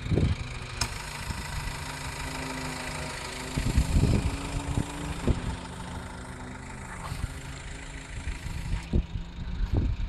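Subaru XV Crosstrek's 2.0-litre flat-four Boxer Diesel engine idling steadily. A few low rumbles hit the microphone, about four seconds in and near the end.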